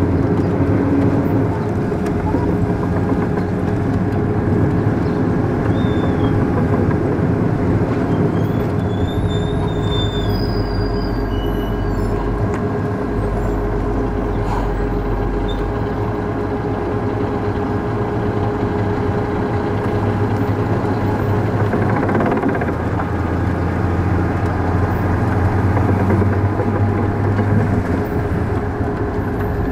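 Armored military patrol vehicle driving: steady engine drone and road noise with a constant whine, heard from its open gun turret.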